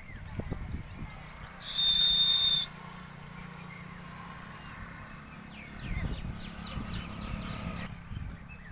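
One shrill, steady whistle blast about a second long, almost two seconds in, over a background of birds chirping and a low steady hum.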